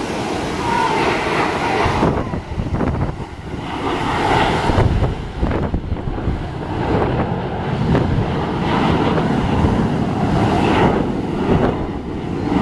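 Aermacchi MB-339 jet trainers passing in formation: the rumble of their turbojet engines, swelling and fading, with wind buffeting the microphone.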